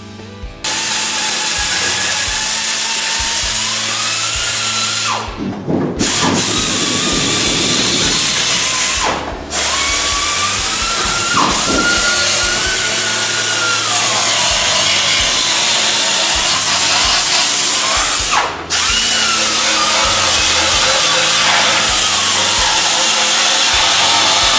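Handheld power tool running under load on car body metal, its pitch wavering as pressure changes, with three short breaks where it eases off.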